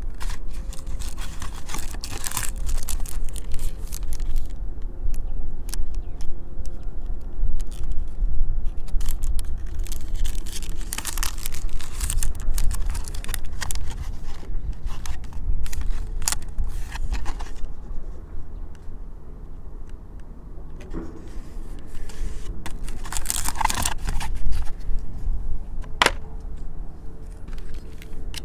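Handling noise from unboxing an airsoft pistol: cardboard box, plastic wrap and paper instructions rustling and crinkling, with scattered sharp clicks and taps, over a steady low rumble.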